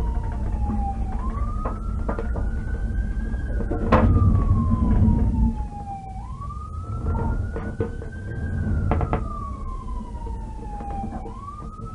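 Police car siren on a slow wail, rising quickly and falling slowly about every five seconds, over the low rumble of the cruiser's engine and tyres on a rough dirt road. A sharp knock about four seconds in is followed by a second or so of heavier rumble.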